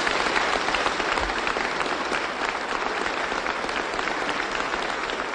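Sustained applause from a large audience, a dense steady crackle of many hands clapping.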